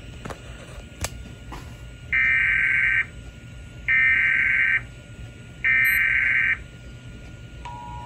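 Sage EAS ENDEC sending an Emergency Alert System SAME header: three identical bursts of shrill warbling data tones, each about a second long. Near the end the steady two-tone EAS attention signal begins.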